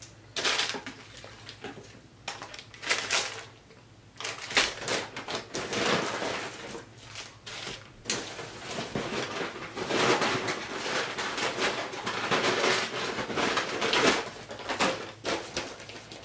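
Paper fast-food wrappers and bags rustling and crinkling as they are handled and unwrapped, in irregular bursts that grow busier in the second half.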